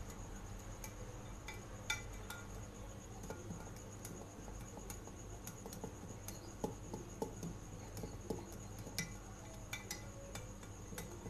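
Faint, scattered clinks of a utensil against a glass bowl, heard while dry muffin ingredients (flour, cocoa, baking powder) are mixed, several in quick succession near the end. A steady thin high-pitched whine sits underneath.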